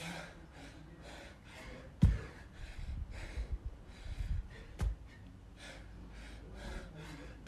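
Quick, heavy breathing of a man mid-workout during a dumbbell snatch set, with two heavy thuds about two and five seconds in as the dumbbell comes down onto the rubber floor mats between reps.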